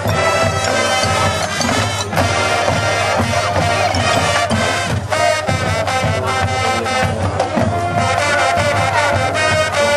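Marching band playing a halftime show: held brass chords over steady drum strokes.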